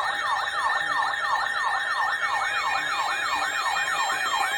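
Electronic yelp-style siren alert sounding for a civil emergency message: a tone sweeping rapidly up and down, about four to five times a second, with a faint steady tone under it.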